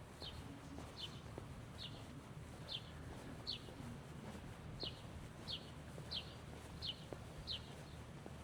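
A small bird calling: a run of short, high chirps, each sliding downward, repeated about every two-thirds of a second with a brief pause near the middle, ten in all, over a faint low background rumble.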